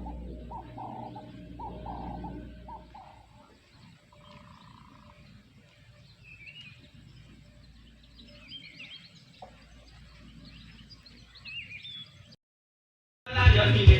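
Birds calling: a quick run of repeated calls for the first few seconds, then scattered high chirps. The sound cuts off near the end and music starts.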